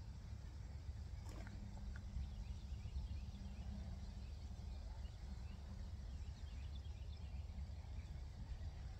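Faint outdoor ambience: a steady low rumble with scattered faint, short high chirps of distant birds.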